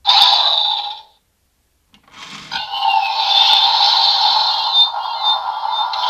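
Electronic sound effects of a fan-made Kamen Rider transformation belt: a short burst that fades out within a second, a pause, then a steady, high-pitched electronic standby loop that swells in about two seconds in and holds.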